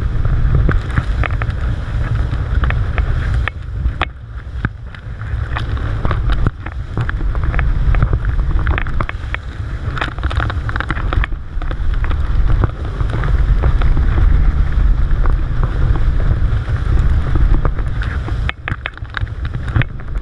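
Wind buffeting the microphone at the bow of a motorboat under way, a heavy steady rumble with water rushing and splashing along the hull in short bursts.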